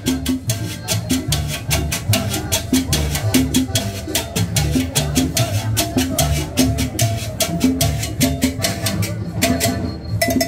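Live Latin dance music from a street band: a fast, even percussion beat over a moving upright bass line.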